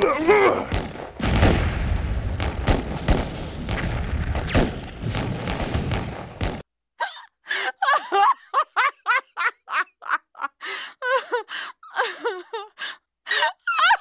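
A continuous din of cartoon explosions and sharp pops that cuts off abruptly about six and a half seconds in. It is followed by a rapid run of short duck quacks, several a second.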